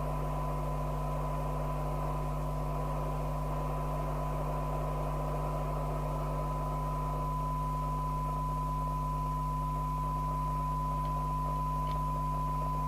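A steady 1 kHz test tone from the signal generator, received and demodulated by the Rotel RVC240 FM CB radio and sounding from its speaker with a haze of hiss from the weak test signal, over a steady low hum.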